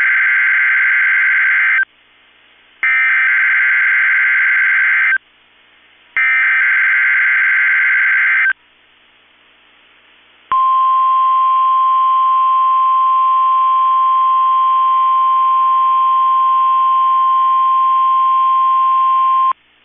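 NOAA Weather Radio Emergency Alert System tones for a Required Weekly Test. Three bursts of SAME digital header data, each a warbling screech about two seconds long, are followed by the steady single-pitched weather radio warning alarm tone, which holds for about nine seconds and cuts off abruptly.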